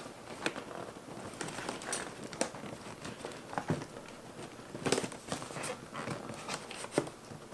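Hands pushing and fiddling at a panel inside a toy's packaging box: scattered light taps, scrapes and crinkles, with a few sharper clicks about five and seven seconds in, as the panel refuses to move.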